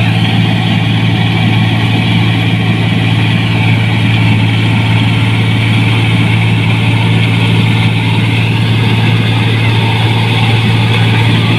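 New Holland 1545 combine harvester running steadily as it cuts rice: a constant, loud low engine hum with the noise of the machinery working above it.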